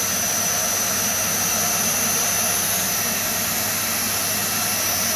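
Household vacuum cleaner running steadily, a constant rushing hiss with a high whine, its suction drawn down to a thin clear tube on a 3D-printed adapter to pull dust out of a phone's clogged speaker grille.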